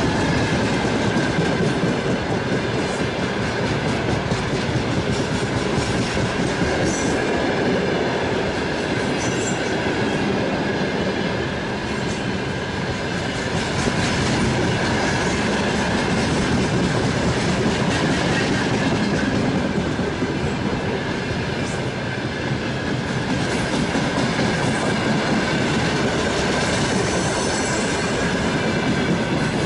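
Freight train of open gondola wagons rolling past at close range: a steady rumble and clatter of wheels on the rails, with a faint high ringing tone held through it.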